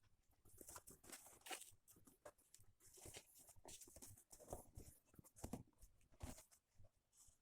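Faint, irregular rustling, scraping and light tapping, the sound of materials being handled and worked by hand.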